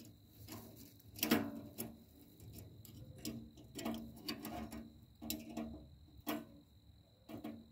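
Irregular small metallic clicks and taps as parts of a stainless steel wood camp stove are handled and fitted together by gloved hands, with one louder clank about a second in.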